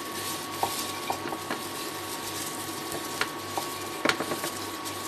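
A plastic spatula stirring rice, paneer and vegetables in a stainless steel pan, with irregular scrapes and clicks against the pan over a light sizzle from the hot pan.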